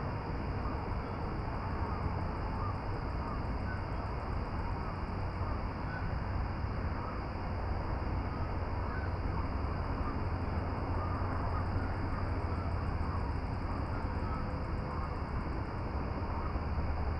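Steady outdoor noise, a low rumble with an even hiss over it, and faint scattered bird calls dotted through it.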